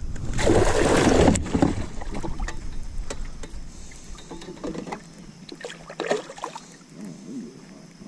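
A burst of rustling, knocking handling noise in a small metal boat, with one sharp knock about a second and a half in. After that come fainter clicks and rustles as fishing tackle is handled.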